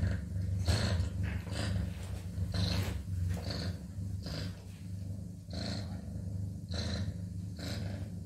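Cat purring: a steady low rumble with a breathy pulse about once a second as the cat breathes in and out.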